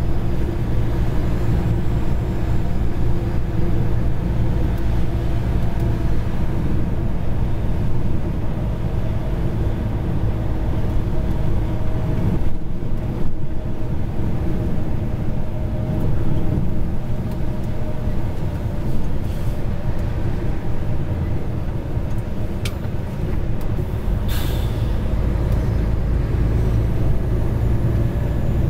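Truck engine and road noise heard from inside the cab while cruising steadily on a highway, with a click and a short hiss near the end.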